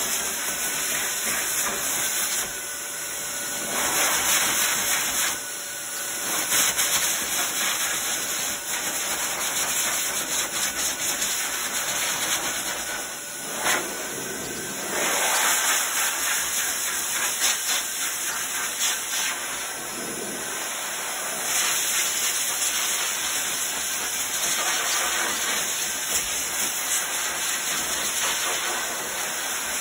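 Pet force dryer blowing a steady rush of air through its hose onto a wet Portuguese water dog's curly coat, blasting the bath water out. The hiss swells and dips every few seconds as the nozzle moves over the coat.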